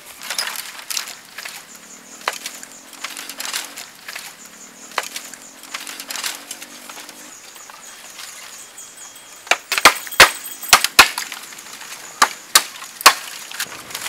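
Light crackling steps through dry leaf litter, then a run of loud, sharp cracks as bamboo canes are bent and broken.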